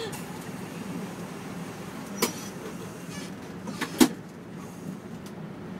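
Bus engine idling, heard from inside the cabin, with two sharp knocks, one about two seconds in and a louder one about four seconds in.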